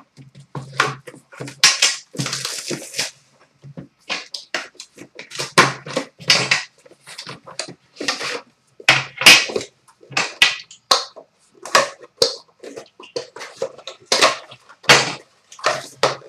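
Plastic wrapping being torn and crinkled off a sealed Upper Deck The Cup hockey card box, with the box handled and slid out of its outer sleeve: irregular crackling bursts throughout, and a single sharp click about twelve seconds in.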